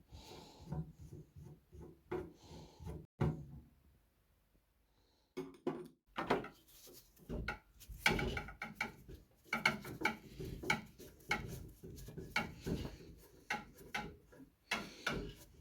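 Table saw side panel being unscrewed and taken off: irregular clicks, scrapes and knocks of a screwdriver working star screws and the panel being handled, with a brief lull about four seconds in.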